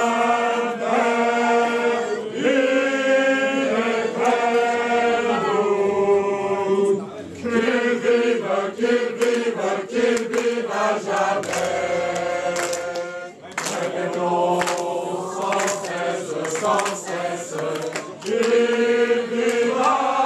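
A group of men singing a Flemish vivat, a celebratory song, together without accompaniment: long held notes, a stretch of quick short syllables in the middle, and brief breaks between phrases.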